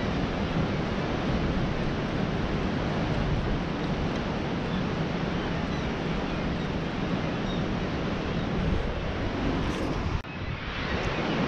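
Wind buffeting the microphone over the steady wash of surf breaking at the foot of a sea cliff. The sound dips briefly about ten seconds in.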